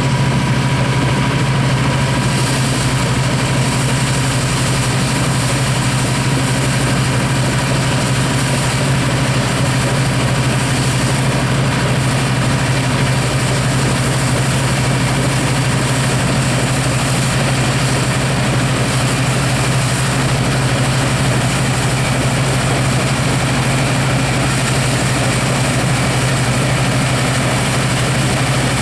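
Massey-Harris Clipper combine at work harvesting wheat: a steady, unbroken engine drone mixed with the running of its machinery.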